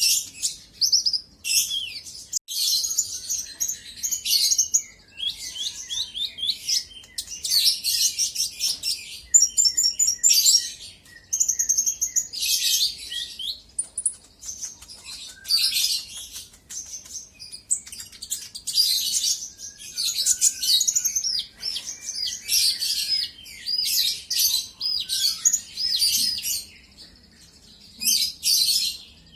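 Kolibri ninja (konin), a sunbird, singing continuously in rapid, high-pitched twittering phrases with short pauses between bursts.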